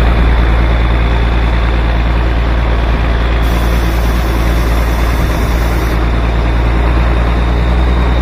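Engine of a REO military wrecker truck running steadily as the truck drives, a loud, even low drone heard from on board. A hiss comes in midway and stops about two and a half seconds later.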